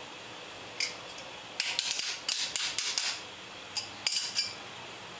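Channel-lock pliers clicking and scraping on a stubborn lifter as it is worked and twisted in its bore in a Buick 455 V8 block. There is a single click just under a second in, then a quick run of metallic clicks and scrapes for about a second and a half, then a few more near the end.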